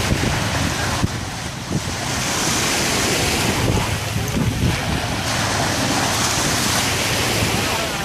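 Wind buffeting the microphone over the wash of shallow surf, swelling and easing in gusts.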